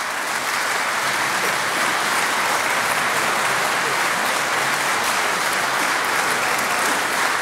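Audience applauding steadily, the dense clapping of a full hall.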